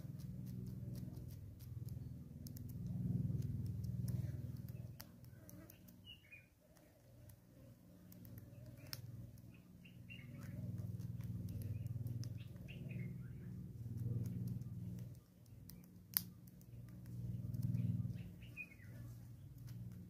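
Small birds chirping in short phrases every few seconds, with light clicks and taps from a southern red-billed hornbill's bill pecking seed on a wooden stump and one sharper click late on, over a low hum that swells and fades.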